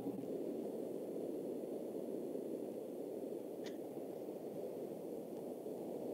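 Steady low hiss of background noise from an open microphone on a video call, with one faint click about three and a half seconds in.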